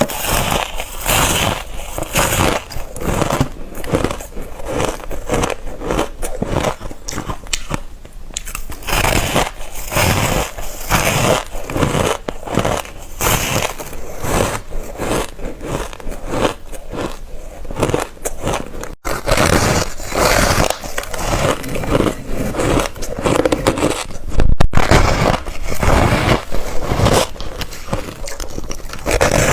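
Ice being bitten and chewed close to the microphone: a dense run of crisp crunches, several a second, that break off briefly twice.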